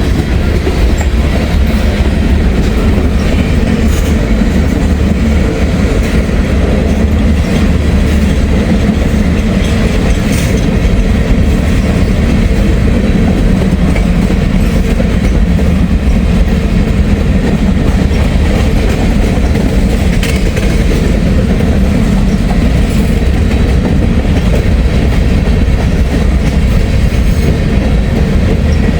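Empty grain train's freight cars rolling steadily past, their wheels clacking over the rail joints.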